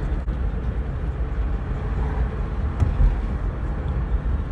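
Steady low road and engine rumble inside a moving car's cabin, with a couple of faint clicks.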